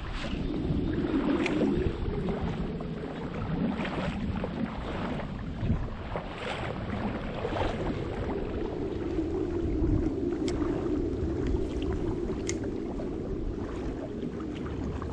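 Steady rush of fast-running creek water around a wading angler, with wind on the microphone and a few light clicks.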